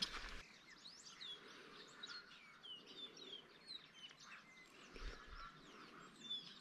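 Birds chirping: many short whistled calls gliding up and down in pitch, several overlapping, over a quiet outdoor background.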